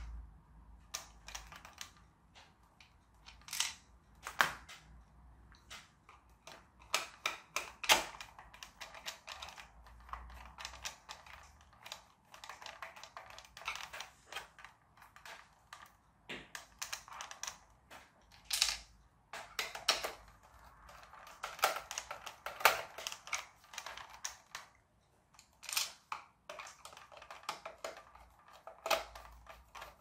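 Irregular clicks and taps of small plastic parts of a toy RC tractor being handled and fitted together.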